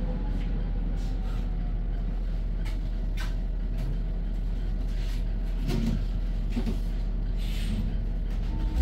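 Cabin noise of a moving bus: a steady low rumble with a faint whine that slowly falls in pitch, scattered clicks and rattles, and a short hiss near the end.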